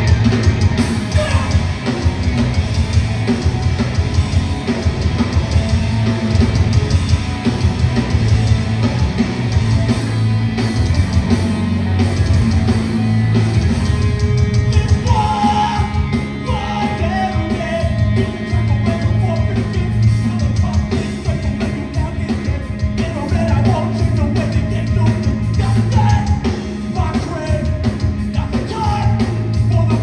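A melodic hardcore band playing live and loud: distorted guitars, heavy bass and driving drums, with shouted vocals coming in about halfway through.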